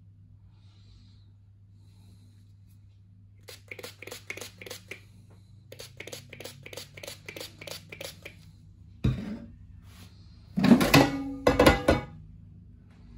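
Pump-action cooking oil spray bottle pumped in two runs of quick, short sprays, several a second. Then a thump and a loud clatter of the air fryer basket being handled, over a low steady hum.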